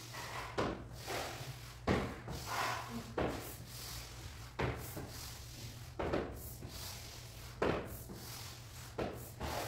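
A floor squeegee pushed in repeated strokes across polished porcelain floor tiles: a series of sliding scrapes, each starting sharply, about one every second and a half.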